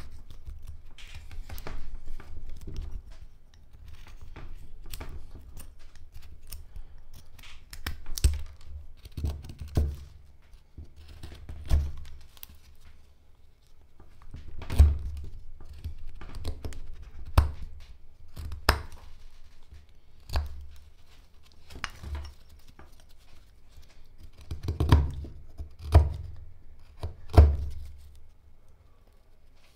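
Hand carving blade slicing and paring hard black locust (Robinia) wood in irregular strokes a second or two apart, each a short scrape or snap as a chip comes away. The sharpest cuts come near the middle and near the end, with a dull thud under each.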